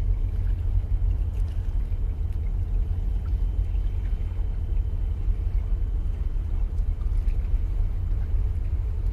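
Steady low rumble of wind buffeting the microphone, with water washing against the breakwater's concrete tetrapods and a faint steady high tone.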